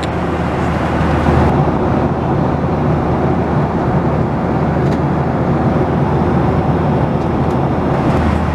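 Cabin noise of a Boeing 737-800 in cruise: a steady rushing of airflow and engine noise with a low hum underneath.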